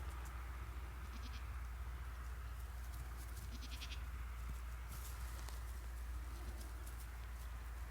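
Baby goats bleating twice in short, quavering calls, over a steady low rumble.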